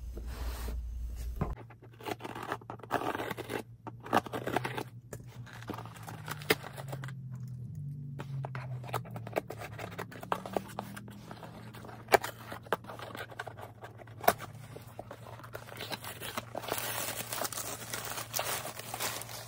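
A shipping package being opened by hand: packaging tearing, scraping and crinkling, with many irregular sharp clicks and rustles.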